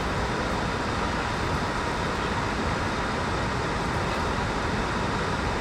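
Steady, unbroken rushing noise with a faint hum in it.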